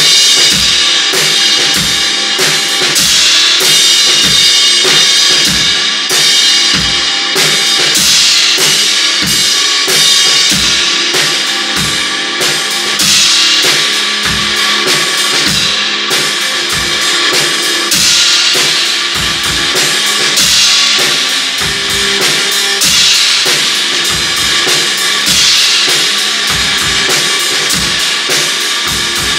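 Loud instrumental garage-punk rock jam: a drum kit pounds out a steady kick-and-snare beat under washing cymbals, with a cymbal swell about every two and a half seconds, over distorted electric guitar.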